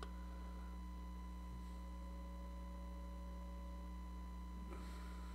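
Steady electrical mains hum with a few faint constant whining tones above it, unchanging throughout, with a faint brief rustle near the end.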